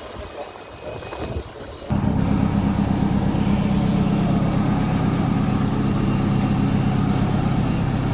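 A steady engine drone with a low, even hum, starting abruptly about two seconds in after quieter background noise.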